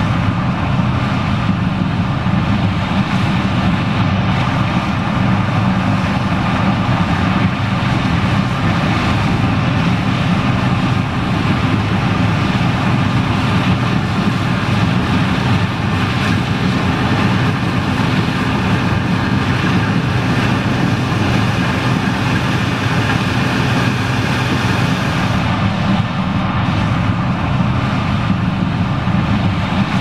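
John Deere 9560STS combine harvesting corn with a tractor and grain cart running alongside: a steady, even machinery drone with a constant engine hum.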